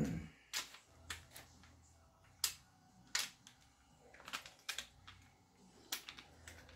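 Irregular light clicks and taps, a dozen or so, from the action and breech of an Umarex HDX 68 CO2 less-lethal shotgun being worked by hand while a ball is stuck in the breech.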